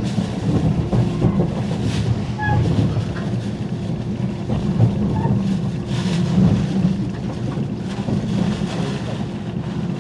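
Running noise inside a JR 485-series electric limited express train at speed: a steady low rumble of wheels on rail, with a faint steady hum above it and a few light ticks.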